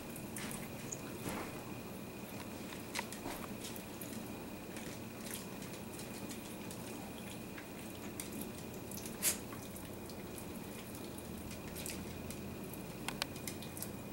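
Faint steady room hum with scattered small wet clicks and smacks from Italian greyhounds licking their lips, one sharper click about nine seconds in.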